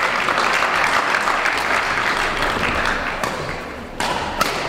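Badminton rally in a sports hall. A steady rushing noise fades after about three and a half seconds, then two sharp smacks of racket on shuttlecock come near the end.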